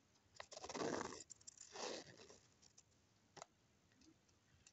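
Plastic spirograph gear rattling along the toothed ring as a pen drives it round, the pen scratching on paper: two short scratchy bursts in the first half, then a few faint clicks.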